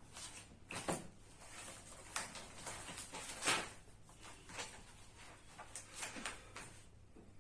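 Paper pages of a spiral-bound book being flipped in quick succession: a string of short rustles and flicks, the loudest about three and a half seconds in.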